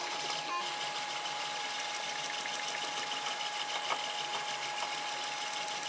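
3D printer running mid-print, giving a steady mechanical hum with a constant tone through it and a few faint ticks.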